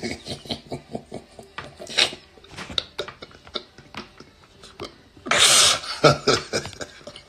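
A man laughing, in short breathy pulses with a louder outburst about five seconds in.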